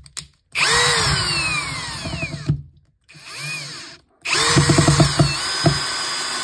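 Parkside Performance 20 V cordless drill/driver with a brushless motor driving a wood screw in short runs. The motor whine drops in pitch as the screw loads it, then stops. After a brief softer run it starts again, with a rapid string of clicks for about a second before running steadily.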